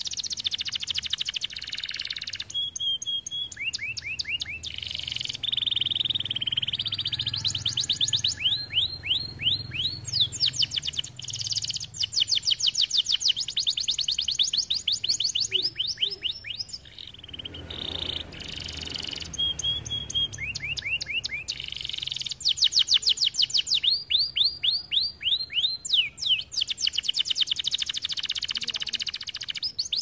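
Domestic canary singing loud, fast song: long runs of rapid repeated notes and rolling trills, with a short pause about halfway through.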